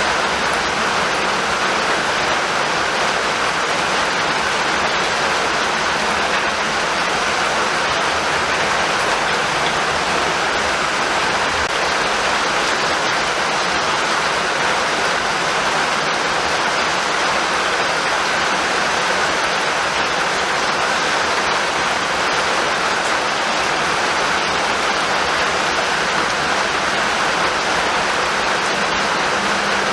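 Steady, heavy rainfall: a dense, even hiss of rain with no let-up.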